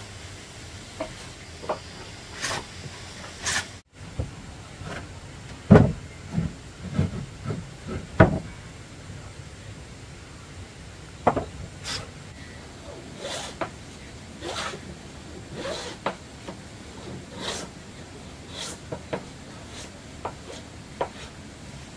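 Timber being worked by hand: scattered knocks and heavy wooden thumps, loudest about six and eight seconds in, then a run of short strokes about once a second.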